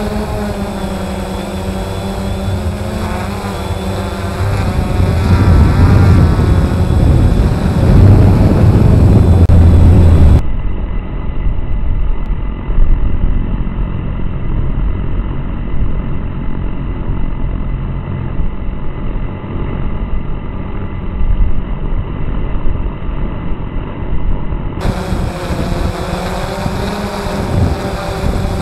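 Quadcopter's electric motors and propellers running in flight, heard from the onboard camera: a steady multi-tone hum whose pitch wavers as the motors change speed, with low wind rumble. About ten seconds in the sound turns duller, and it clears again near the end.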